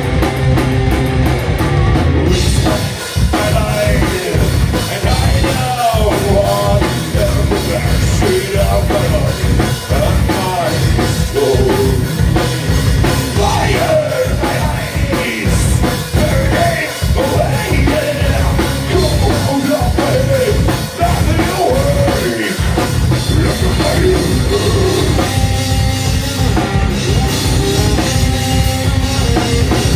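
Live rock band playing loud, with electric guitars and a drum kit. A singer's vocal runs over much of it and drops out near the end.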